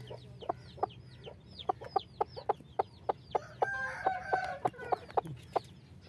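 Chickens clucking in short sharp calls, about two to three a second, with one longer drawn-out call about three and a half seconds in.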